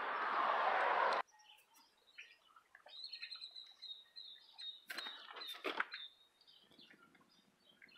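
A loud rush of noise cuts off abruptly about a second in. After it, small birds chirp and twitter, with one thin, high, steady whistled note held for a few seconds in the middle, and a couple of faint clicks.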